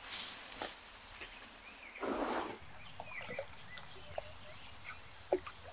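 Steady, high-pitched chirring drone of insects, with a short rush of noise about two seconds in and a few faint, short chirps.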